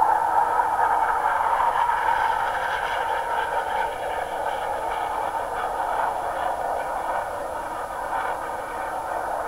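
Jet aircraft engine noise heard from the ground as a steady rush, slightly louder in the first couple of seconds and easing off a little after.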